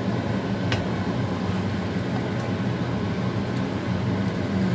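Steady mechanical hum in the background, with one light click of a plastic serving spoon against the dish about a second in.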